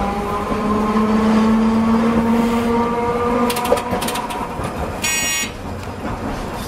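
Hiroshima Electric Railway 570-series tram running, heard from inside the driver's cab: a steady motor whine that rises slightly in pitch, then fades a little after three seconds. A few clicks follow, then a brief high ringing tone about five seconds in.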